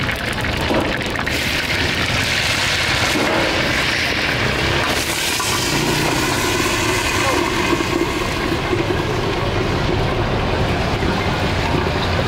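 Steady hiss and rumble of a street-food stall's gas burners and steaming pots, with a louder hiss from about one to five seconds in.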